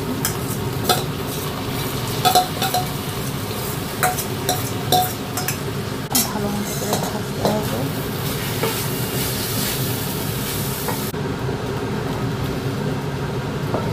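Marinated rice sizzling as it is tipped into hot oil in an aluminium pot, with sharp clicks and scrapes of a metal spoon against the steel bowl and the pot, then stirred with a wooden spatula.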